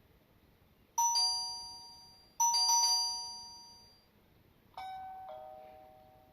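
Electronic doorbell chime of a WiFi video doorbell ringing a two-note ding-dong three times, each chime dying away slowly. The first two come close together, and the third, about two seconds later, is quieter and lower-pitched.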